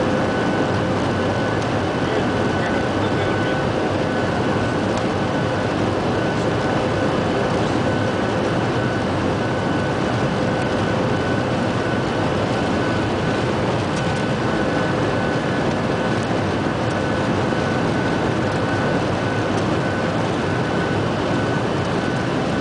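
Jet airliner's turbofan engines at take-off power heard from inside the cabin during the take-off roll: a loud, steady rush with a steady whine on top.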